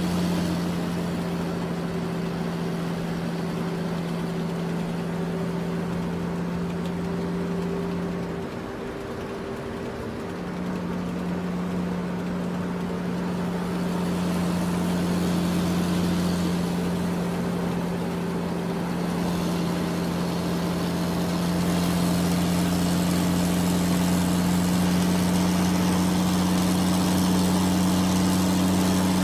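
An engine running steadily with an even low hum; the hum drops away for about two seconds, about eight seconds in, then comes back.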